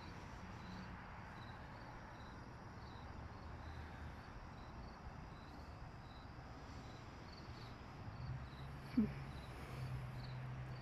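Crickets chirping steadily at about two chirps a second, over a low steady hum of street traffic. A brief sharp sound about nine seconds in.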